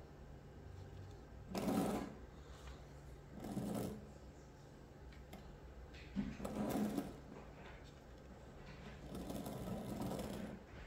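Small electric motor of a kit solar car whirring in four short spurts, each lasting from about half a second to just over a second.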